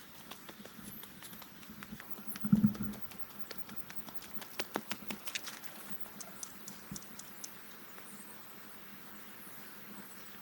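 Scattered light clicks and taps of handling or movement, with one louder knock about two and a half seconds in.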